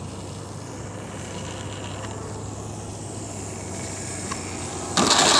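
Electric RC Cessna model on a low landing approach, its motor making a faint steady whir. About five seconds in, a sudden loud rough rolling rumble starts as the plane's wheels touch down and roll on concrete.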